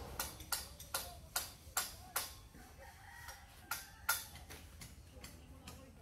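Hammer blows: a run of about seven sharp strikes, roughly three a second, then a pause and two more about halfway through, fading to fainter knocks.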